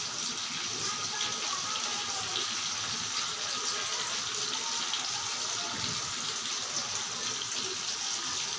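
Steady rushing hiss at an even level, with faint pitched sounds drifting in and out beneath it.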